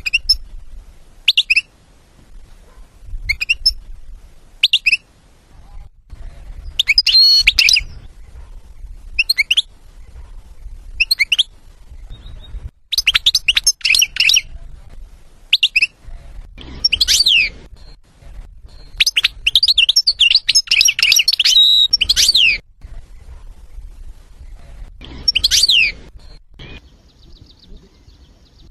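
European goldfinch singing: short, separate high chirps every second or two at first, then longer bursts of fast twittering trills with pauses between them.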